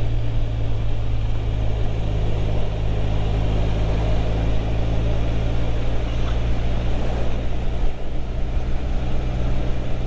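Motorcycle engine running steadily at a constant road speed, its pitch unchanging, under a continuous rush of wind and road noise.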